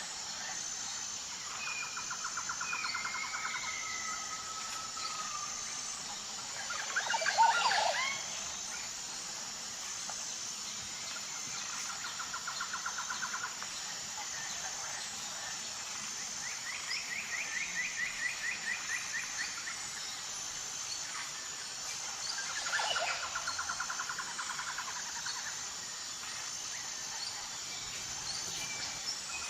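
Birds calling with repeated fast trills over a steady high-pitched insect drone, with one louder, sharper call about seven seconds in.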